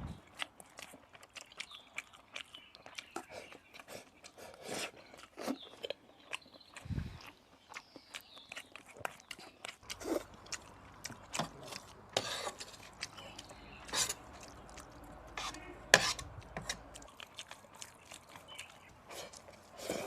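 A person eating close to the microphone: chewing and mouth smacks of soft mapo tofu and rice, with scattered sharp clicks throughout.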